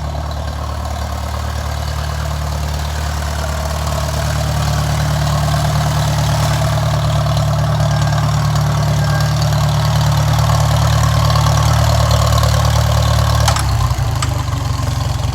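Farmall 300 tractor engine running steadily, growing slightly louder. About 13 seconds in there is a sharp click and the engine's note changes abruptly.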